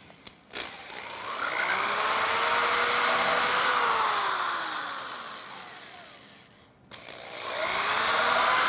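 Cordless drill boring two pilot holes into a pine board with a small twist bit: after a few light clicks the motor whine speeds up and slows down through the first hole, stops for a moment about seven seconds in, then runs up again for the second hole.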